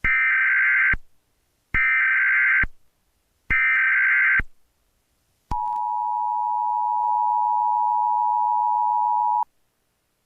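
Emergency Alert System alert: three short bursts of screeching data tones (the header), each about a second long, then the steady two-tone attention signal held for about four seconds before it cuts off abruptly.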